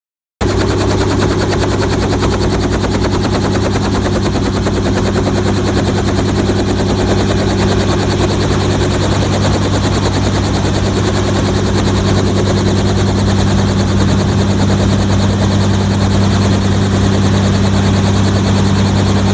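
Robinson R44 helicopter running on the ground: its piston engine and two-blade main rotor make a loud, steady drone. It cuts in abruptly about half a second in.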